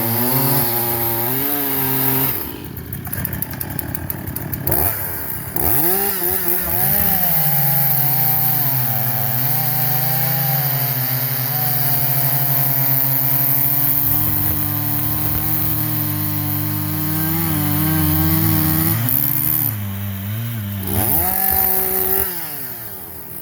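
Large two-stroke chainsaw running at high throttle and cutting wood, its engine pitch wavering and dipping as it is loaded in the cut. The throttle comes off for a few seconds about two seconds in, and again briefly near the end before the saw drops off.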